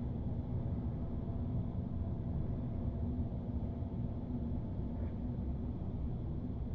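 Steady low hum and rumble of room background noise, unchanging throughout.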